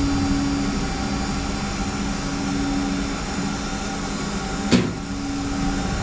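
Steady machine hum with a low droning tone, and a single sharp click a little under five seconds in.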